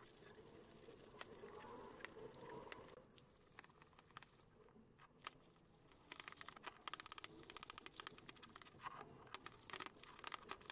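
Faint scrubbing of a cloth rubbed back and forth over bicycle parts, a metal tube and then an aluminium handlebar stem, with quick rubbing strokes that grow denser about halfway through.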